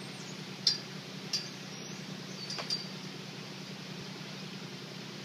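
Three sharp metallic clinks from a tubular steel farm gate being handled, over a steady low hum.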